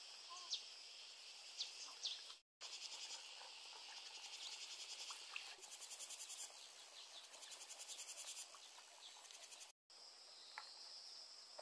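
Faint, steady chorus of insects, with a fast pulsing trill through the middle stretch and a few short bird chirps in the first two seconds. The sound cuts out twice for a moment.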